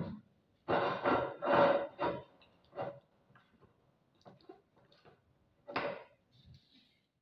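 A metal spoon scraping and clinking in a ceramic mug of thick flour paste. A few short bursts of scraping come about a second in, then scattered light clicks and knocks as dishes on the counter are handled.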